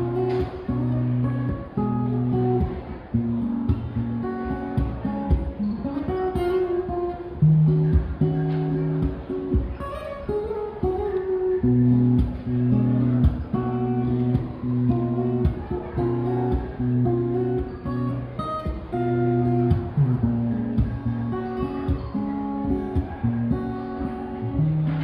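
Acoustic guitar strummed in a steady rhythm, chords ringing with strong low notes, in a live song performance.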